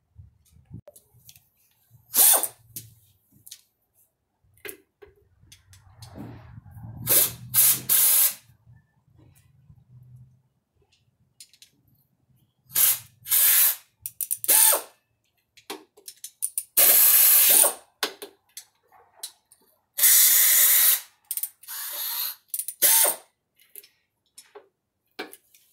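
Ratchet wrench backing out the rocker arm and rocker box bolts on a Harley Evo top end, in a series of separate bursts with pauses between, several of them loud and lasting about a second.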